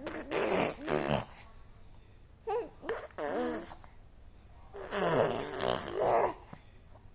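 A baby making funny vocal noises: short bursts of voice that slide down in pitch, three or four of them with pauses between.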